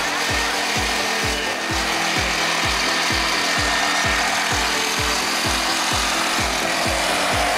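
Electronic dance music with a steady kick-drum beat, about two beats a second, under sustained synth tones.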